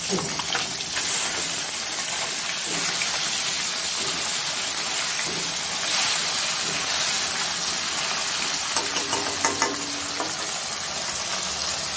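Whole bata fish frying in hot oil in a kadai, a steady sizzle.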